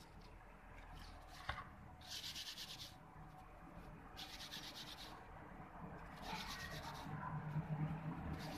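Fresh cucumber leaves being rubbed and crushed between the palms by hand to prepare them for cooking, heard as three spells of quick, dry rustling. A single light click comes about a second and a half in.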